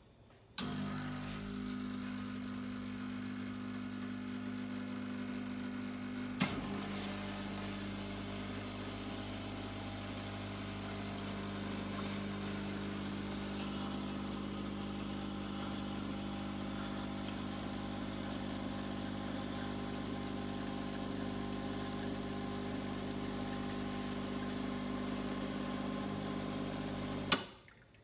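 Espresso machine's pump running steadily with an even hum as descaling solution is flushed through the group head into a cup. It starts about half a second in, there is one click a few seconds later, and it cuts off suddenly with a click near the end.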